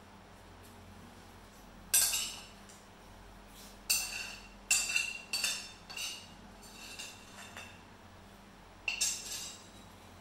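Metal spoon clinking against a ceramic plate while eating: about eight separate strikes, each with a short ring.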